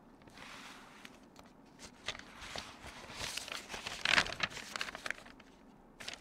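Rustling and crinkling of papers and a handbag being handled, a run of small crackles that is loudest about three to four and a half seconds in.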